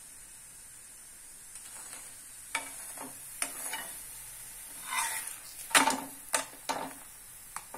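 Bajra millet flatbread (rotlo) roasting in a hot pan, with a faint, steady sizzle. From about two and a half seconds in come several short clicks and scrapes against the pan as the bread is handled.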